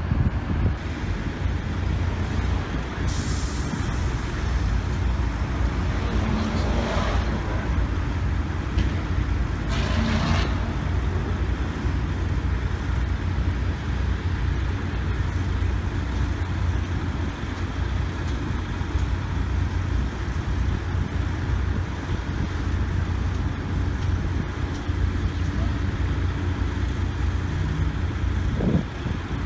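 Drilling rig running with a steady low engine drone. Short hisses cut through it about 3 and 10 seconds in.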